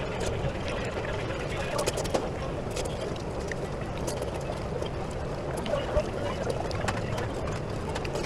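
Ramen shop ambience: a steady low hum with murmured voices in the background, broken by a few sharp clicks of chopsticks and a ceramic spoon against the ramen bowl, the loudest about two and six seconds in.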